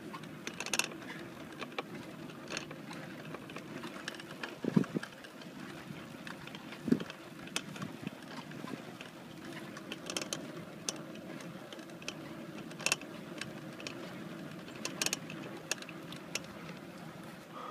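Racing wheelchair rolling on asphalt: a steady road rumble from the tyres with scattered clicks and rattles from the chair, and two heavier knocks about five and seven seconds in.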